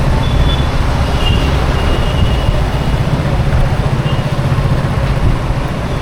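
Road traffic: a steady, loud low engine rumble from motor vehicles under a wash of road noise, with a few faint short high tones above it.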